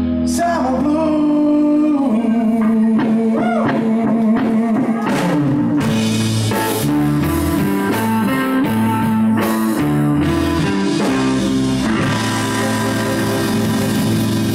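Live blues trio playing: a Stratocaster-style electric guitar plays a lead line with string bends over electric bass and drum kit.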